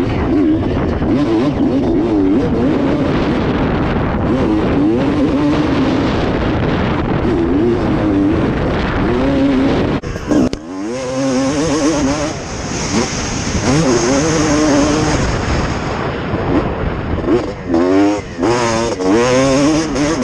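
1995 Honda CR250 two-stroke motocross engine revving hard, its pitch rising and falling as the throttle opens and closes. The sound drops off sharply about halfway through, then returns with several quick rising revs near the end.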